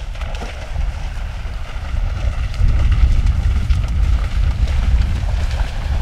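Wind buffeting the microphone in a heavy, uneven rumble, over the steady rush of shallow creek water running over stones.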